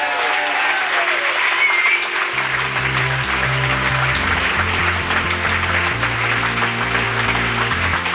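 A crowd applauding with dense, continuous clapping. About two seconds in, music with a stepping bass line comes in under the clapping.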